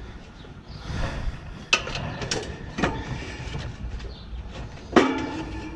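Metal clinks and knocks from handling parts and tools while a condenser fan motor is being fitted into its mount, with rustling between them. The loudest is a sharp clank about five seconds in that rings briefly.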